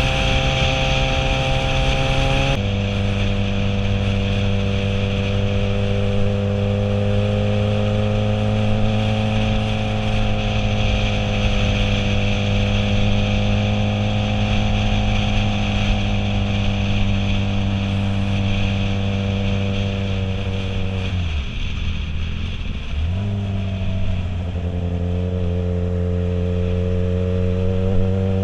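Motorcycle engine running under way, with wind rushing past the helmet-mounted microphone. The engine note drops suddenly about two seconds in, then holds steady, dips briefly about three quarters of the way through, and climbs again near the end as the bike accelerates.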